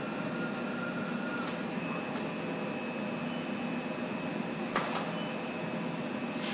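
Flat-bed screen printing machine running: a steady mechanical hum with a thin high whine, while its screen frame lifts off the print bed, and a sharp click a little under five seconds in.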